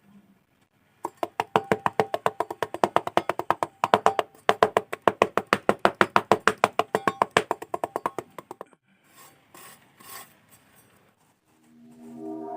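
Rapid, even wooden knocking, about ten knocks a second, in two runs with a short break between, stopping about nine seconds in.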